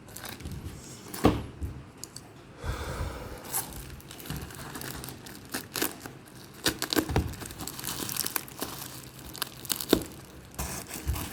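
Packaging being torn open and crinkled by hand, with irregular rustling and sharp crackles and snaps, the loudest about a second in and again near the end.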